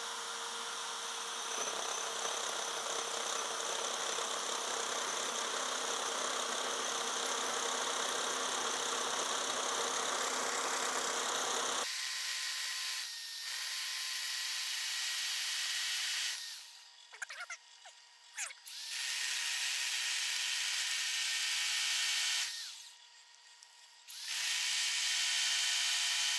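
Corded drill spinning a hole saw into a wooden blank turning on a lathe at a raised speed: a steady cutting whir. About halfway the low end of the sound drops out abruptly, and near the end it stops twice for a second or two before running again.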